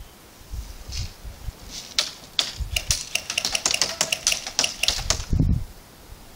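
Airsoft gunfire: a rapid, irregular run of sharp cracks and clicks starting about two seconds in and densest until about five seconds, followed by a dull thump.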